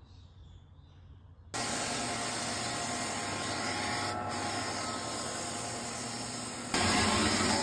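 Galaxy drum floor sander running and sanding a Tasmanian oak parquet floor back to bare wood: a steady, loud noise that starts suddenly about a second and a half in and gets louder near the end.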